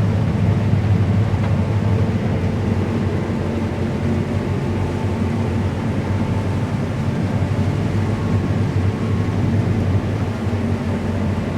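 Combine harvester running steadily while harvesting canola, a constant low machine hum heard from inside the cab.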